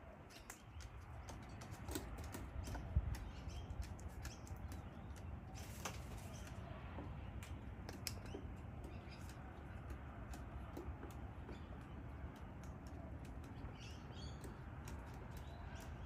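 Sulphur-crested cockatoos moving about: a brief flutter of wings, then soft scattered clicks and rustles over a low steady rumble.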